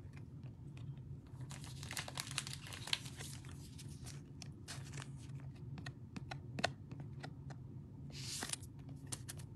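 Trading cards and a clear plastic card sleeve being handled: faint crinkling and rustling as a card is slid into the sleeve, with scattered small clicks and a brief sharper rustle near the end.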